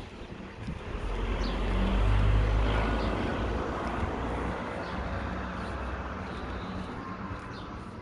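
A motor vehicle passing by: a rumble with a low engine hum that swells over the first couple of seconds, then slowly fades away.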